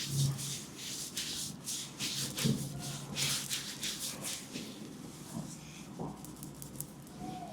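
Hands rubbing and stroking a head and skin in a massage: a run of short, irregular brushing strokes, denser in the first half and sparser near the end.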